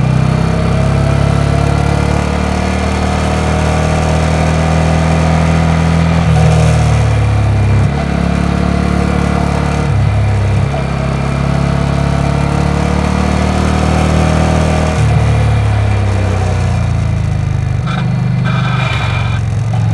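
Yamaha XV950R's air-cooled V-twin engine idling steadily, its pitch shifting slightly up and down a few times.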